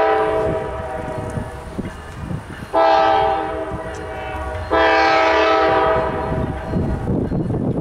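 Multi-chime air horn of a GE C44-9W diesel locomotive sounding three long blasts as it approaches a grade crossing. The first blast is already sounding and fades about a second and a half in; the second starts nearly three seconds in, and the third follows almost at once. The low rumble of the locomotive and train runs underneath.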